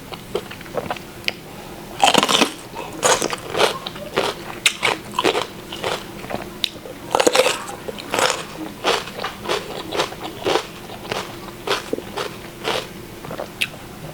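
Close-miked chewing and mouth noises of a person eating a holy basil stir-fry with bolete mushrooms: irregular moist clicks and bites, several a second.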